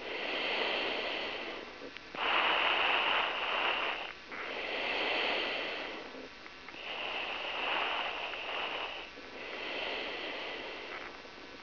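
Breathing picked up close on the driver's helmet microphone: about six slow breaths, each a second and a half to two seconds long, with short pauses between.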